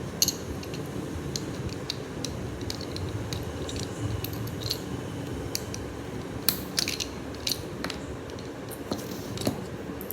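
Lego bricks being handled and pressed together: a scattered string of small, sharp plastic clicks and taps, busiest a little past the middle.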